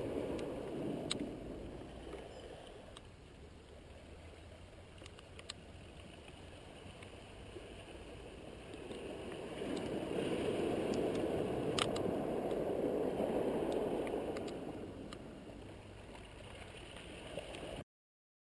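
Surf on a cobble beach, a rushing wash that swells twice, strongest about ten to fifteen seconds in, with scattered sharp clicks; the sound cuts off suddenly just before the end.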